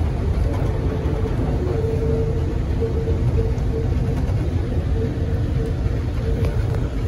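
Bombardier Innovia APM 100 rubber-tyred people mover heard from inside the car as it runs along its concrete guideway: a steady low rumble with a faint whine held at one pitch.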